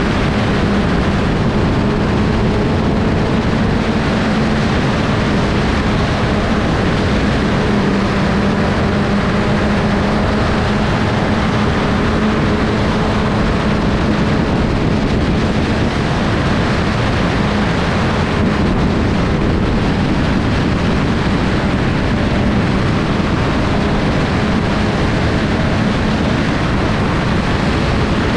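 Sport compact race car's engine running flat out on track, its pitch held nearly steady with only slight dips, over a constant rush of wind and road noise.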